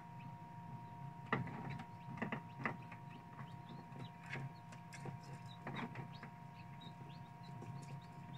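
Tabletop egg incubator's fan and motor humming steadily in two held tones, with a few short knocks and taps.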